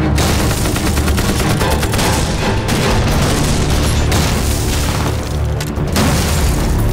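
Battle sound effects: explosions and gunfire over background music, with a fresh blast about every two seconds.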